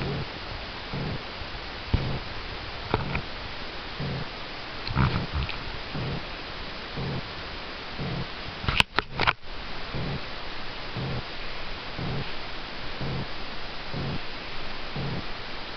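Domestic cat purring close to the microphone, the purr swelling in soft pulses about once a second with her breathing. A few sharp clicks from handling come about nine seconds in.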